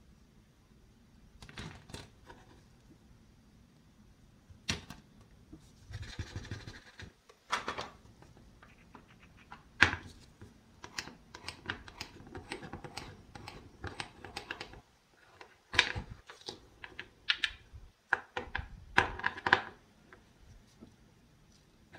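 Wooden play-food pieces clicking and knocking against each other and on a wooden cutting board as they are handled and cut apart with a toy knife, with short scratchy rasps about six seconds in and again near the end.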